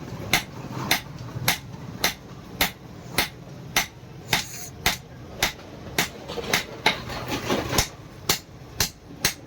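Hammer striking iron on an anvil in a steady rhythm, a little under two blows a second, each blow a sharp metallic clang: a knife blade being forged.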